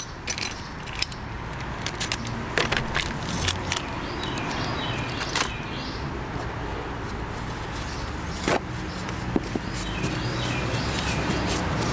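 Scattered small clicks and light clinks from a motorcycle chain master link kit and its packaging being handled, over a steady low hum.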